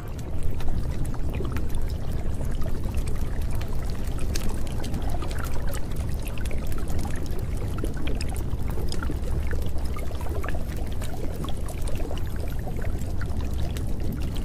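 Steady rushing water noise, heavy in the low end, with many small scattered drips and splashes.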